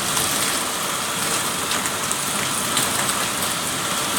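Rain falling steadily in a severe thunderstorm: a dense, even hiss with faint scattered drop ticks.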